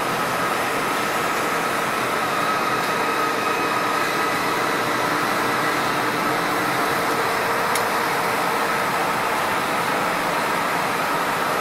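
Hydraulic double-chuck spindle veneer lathe running steadily: a continuous machine hum with several constant tones over an even noise.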